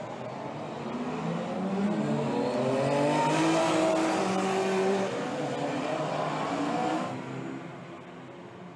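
Historic GT race cars accelerating past on the circuit, their engine notes rising in pitch and overlapping. The sound is loudest through the middle and falls away about seven seconds in.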